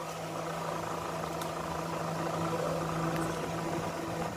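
A steady, low mechanical hum at one constant pitch, which stops shortly before the end.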